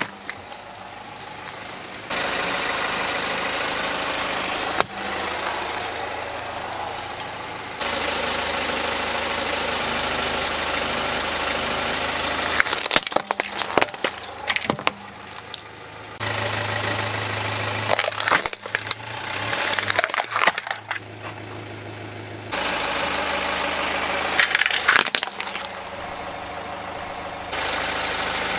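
Car tyre rolling over small objects and crushing them: several bursts of sharp cracking and snapping over the steady sound of the car's idling engine. The background changes abruptly between cut clips.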